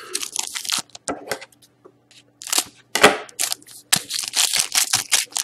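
Foil wrapper of a 2013-14 Titanium hockey card pack crinkling and tearing in the hands, a string of short crisp crackles with brief pauses between them.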